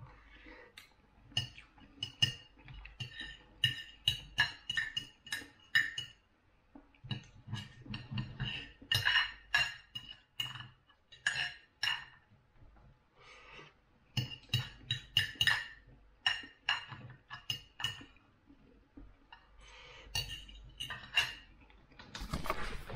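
Metal fork and knife clinking and scraping on a plate while eating, in irregular clusters of light taps with short pauses. Near the end there is a louder rustle of the camera being handled.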